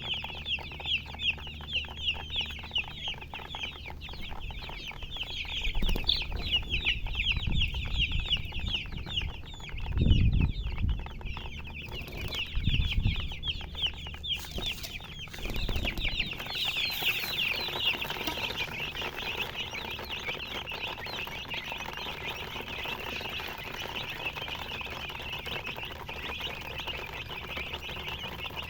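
A brood of baby chicks peeping continuously, many short high-pitched falling chirps overlapping. Low thumps and rumbles come in between about 6 and 16 seconds in.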